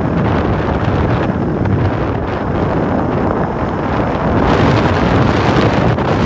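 Wind rushing over a handheld phone's microphone during a downhill ski run, mixed with the hiss of skis on the snow. The rush grows louder about four and a half seconds in.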